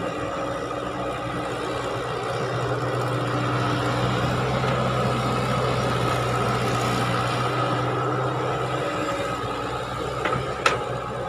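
Caterpillar excavator's diesel engine running under hydraulic load with a steady hum, louder for a few seconds in the middle as the loaded bucket swings over a dump truck, then easing off. A sharp metallic clank near the end.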